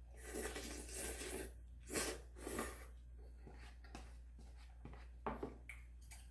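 Close-miked eating sounds: a stretch of mouth noise in the first second and a half, two louder sharp ones around two seconds in, then softer chewing clicks.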